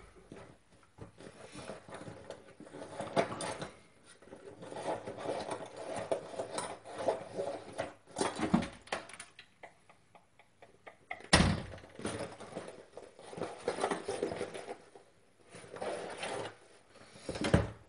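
Scattered rustling and handling noises with a few sharp knocks, the loudest about eleven seconds in.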